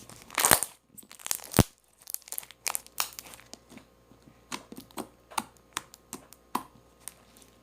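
Homemade slime being handled, stretched and squished, with irregular sticky pops and crackles. Two louder bursts come in the first two seconds, then scattered pops.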